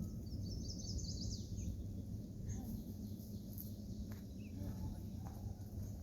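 Steady low rumble, with a small bird twittering briefly about a second in.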